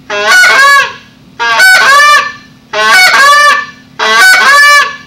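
Handheld Canada goose call blown in four loud, long notes of about a second each, each sliding up quickly and then held out. The notes are left to trail on rather than being broken off short.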